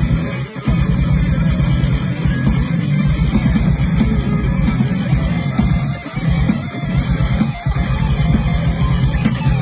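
Heavy metal band playing live: distorted electric guitars and bass over fast drums, with a few brief breaks in the riff.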